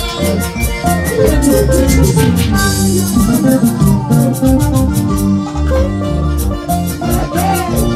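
Live band music with a steady, even beat and a strong bass line, played loud.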